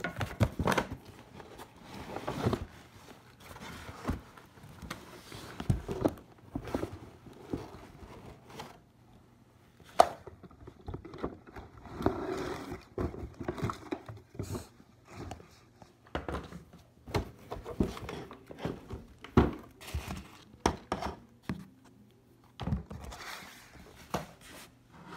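Irregular clicks, scrapes and crinkling of a plastic animated Motionette figure being handled and taken apart for parts, with a sharp click about ten seconds in, over a faint steady low hum.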